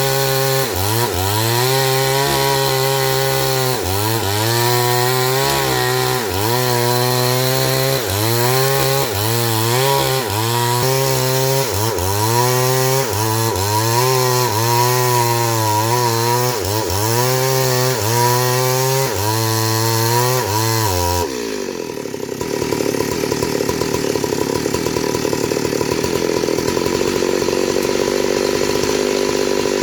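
Chainsaw cutting into a big tree trunk, its engine note dipping and recovering in repeated strokes about every one and a half seconds. About three-quarters of the way through, the sound changes abruptly to a steadier, higher-pitched run.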